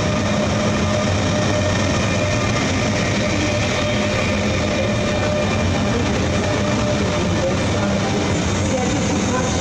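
Electric train running steadily on the tracks: a constant dense rumble and rail noise with a few steady humming tones on top.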